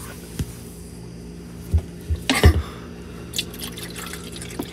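A drink dribbling from a bottle into a plastic cup, with a few dull knocks of the cup and bottle about two seconds in.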